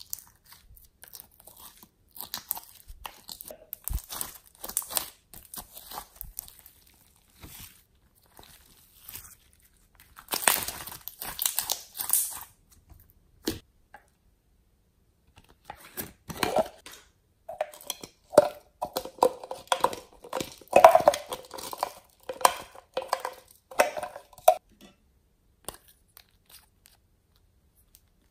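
Glossy slime being squeezed out of soft plastic fruit-shaped containers and worked by fingers: sticky wet crackles, clicks and squelches in irregular spells, with a dense crackling stretch near the middle and a longer squelchy one in the second half.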